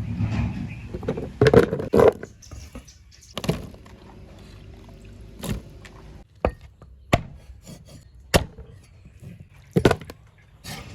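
Sharp wooden knocks or chops, about nine of them at uneven spacing, from half a second to two seconds apart.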